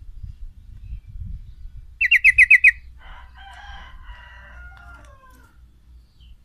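Male yellow-vented bulbul calling: a fast run of about seven loud, sharp falling notes about two seconds in, followed by a jumble of lower chattering and warbling notes. A low rumble sits beneath.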